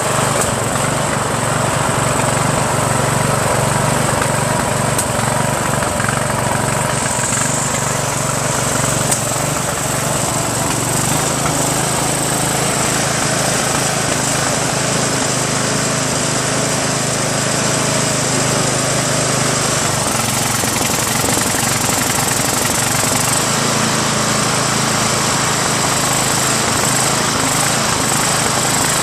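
Briggs & Stratton 15.5 HP lawn tractor engine running steadily, its note dropping a little about eleven seconds in. It is on a test run with the original magneto refitted; the owner concludes the uneven running comes from the governor, not the magneto.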